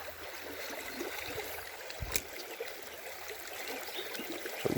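Stream water running steadily, with a short click about two seconds in and another near the end.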